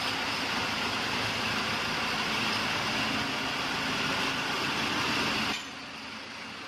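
Shangchai 12V135BZLD1 V12 diesel generator set running at a steady speed. About five and a half seconds in, the sound drops suddenly to a quieter level.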